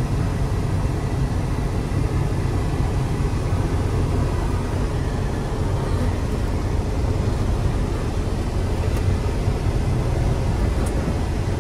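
Semi truck's diesel engine running with road noise, a steady low rumble.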